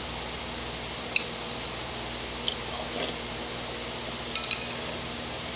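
A metal spoon clinking against a ceramic bowl of rice in water, several separate clinks with a brief ring, over a steady background hiss.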